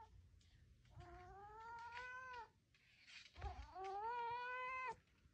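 Domestic tabby cat carrying a string toy in its mouth and giving two long, drawn-out yowls, each rising and then holding its pitch: the call a cat makes when delivering a toy like prey.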